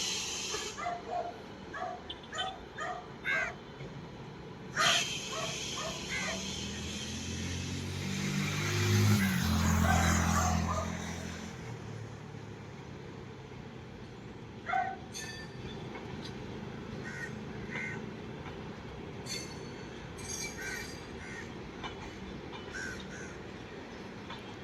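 Crows cawing repeatedly. A train's rumble swells to a peak near the middle and fades away, as it passes.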